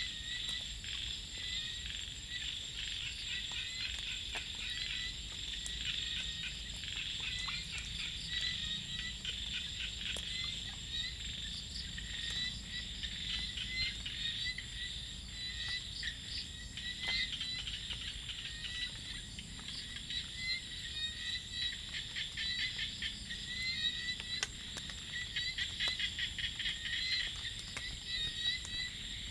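A chorus of small frogs (khiat) and insects calling together: dense, rapid chirping and clicking, busiest near the end, over a steady high-pitched insect whine.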